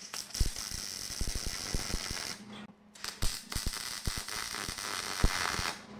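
Welding arc crackling in two bursts of about two and a half to three seconds each, with a short break between, as pieces are tack-welded.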